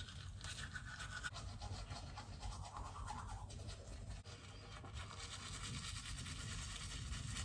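Manual toothbrush scrubbing teeth in quick back-and-forth strokes, a steady scratchy brushing.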